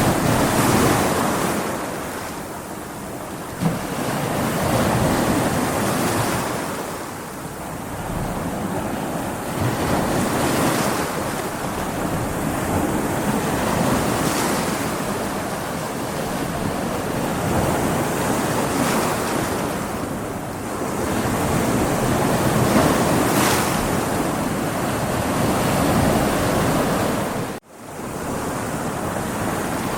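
Ocean waves breaking against rocks, the surf swelling and ebbing every few seconds. The sound cuts out for an instant near the end.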